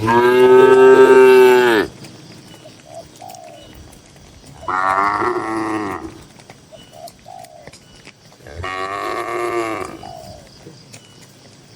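Cattle mooing: three long moos a few seconds apart, the first the loudest.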